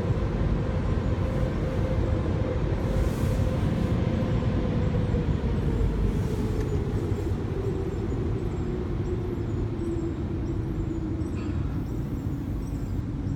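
Automatic car wash heard from inside the car: a steady rumble of the wash machinery and water spraying against the windows, with a machine hum that slowly drops in pitch.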